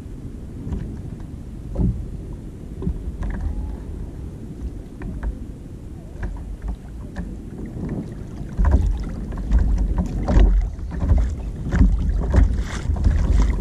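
Wind rumbling on the microphone of a fishing kayak, with scattered knocks and clicks of gear and handling against the hull. From about 8 to 9 seconds in, the rumble and knocks grow louder as the rod is pulled hard against a jig snagged on the bottom.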